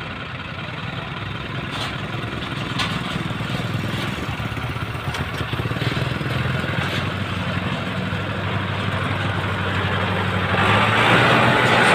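Diesel tractor engine running under load as it hauls a loaded trailer through deep mud, growing steadily louder as it approaches and loudest as it draws alongside about eleven seconds in. A motorbike engine is also heard passing near the start.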